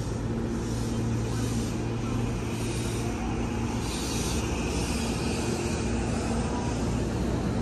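Electric commuter train pulling out of the platform and gathering speed. A steady low hum fades about three seconds in, and a faint rising whine from the traction motors comes in as it speeds up.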